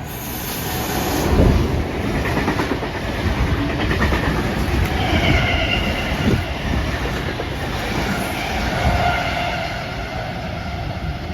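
A train running along the tracks past the microphone, wheels clattering over rail joints, growing louder over the first second and a half. About halfway through, a steady high whine joins in.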